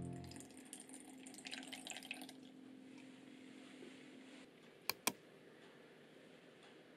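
Faint water trickling and dripping for about two seconds, then two sharp clicks close together about five seconds in.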